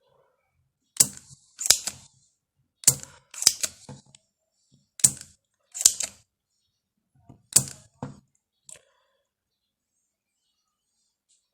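Sharp clicks and knocks of hand tools working on a washing machine's control board while its old power IC is being removed: about ten, several in quick pairs, spread over eight seconds, then stopping.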